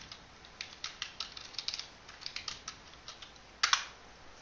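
Typing on a computer keyboard: a quick, uneven run of keystrokes, then a louder press of the Enter key about three and a half seconds in.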